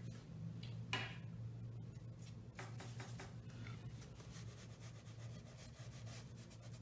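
Faint scratchy strokes and rubbing of a flat watercolour brush working paint, with a sharper tap about a second in, over a steady low hum.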